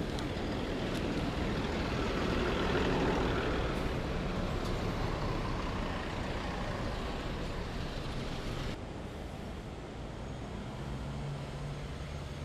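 Road traffic running alongside a moving bicycle, a steady rush of engine and road noise, loudest a few seconds in; the higher hiss drops away suddenly about nine seconds in.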